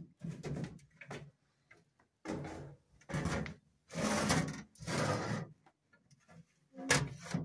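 A baking tray being put into an oven: several short scraping and sliding noises as the oven door and tray are handled, with a louder knock near the end.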